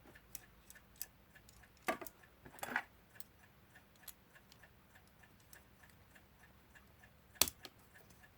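Partly reassembled Emes 52 mechanical alarm clock movement ticking faintly and evenly, about four ticks a second, as it is given its first test run. A few handling clicks are heard, and one sharp knock comes near the end.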